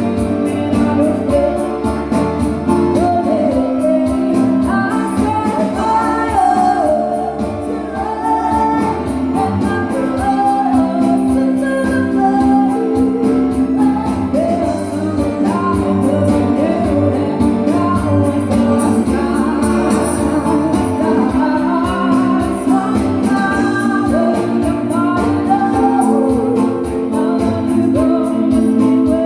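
A pop song cover sung over guitar accompaniment: one voice carrying a melody over steady chords.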